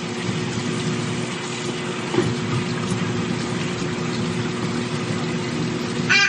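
A steady mechanical hum with a rushing hiss, like a motor-driven appliance running. A brief high-pitched squeal near the end.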